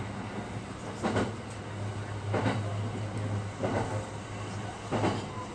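Marine Liner train running on the rails: a steady low hum with a clack from the rail joints about every second and a quarter.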